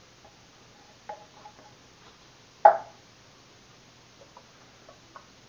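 Silicone spatula scraping out the inside of a metal food can, with soft scrapes and small clicks, and one sharp knock a little past halfway through.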